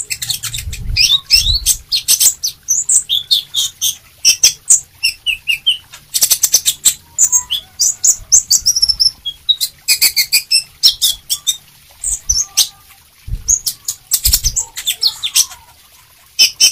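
Caged male sunbird singing vigorously: rapid bursts of high, thin chirps and twittering trills, broken by short pauses. A few low thumps come in about a second in and again late on.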